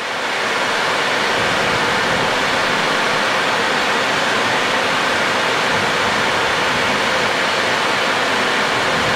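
Steady rushing noise of air around a Boeing 737 cockpit on final approach, swelling up over the first second and then holding even.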